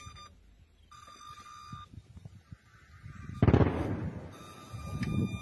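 Seeker tone of a man-portable anti-aircraft missile launcher: a steady high electronic buzz that sounds for about a second, stops, and comes back near the end, the tone the seeker gives when it picks up a heat source. About three and a half seconds in, a loud burst of rushing noise with a deep thump cuts in.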